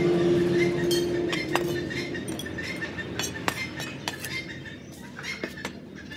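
Cleaver blade knocking and scraping on a wooden chopping board as chopped greens are gathered up: a few scattered, irregular sharp knocks. A held music note fades out in the first two seconds.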